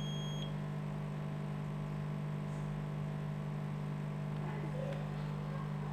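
Steady low electrical hum from the repair bench, unchanging throughout. One short high beep sounds right at the start.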